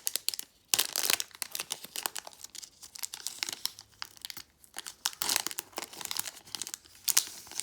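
Foil wrapper of a Pokémon trading-card booster pack being torn open and crinkled: a run of sharp crackles in clusters, loudest about a second in and again near the end.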